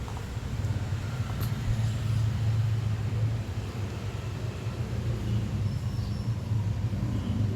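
A steady low hum from a running motor.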